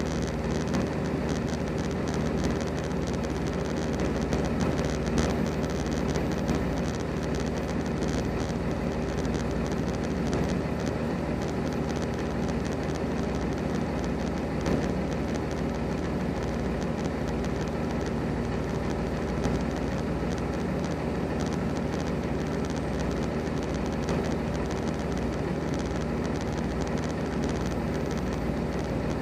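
A semi-truck's diesel engine idling steadily.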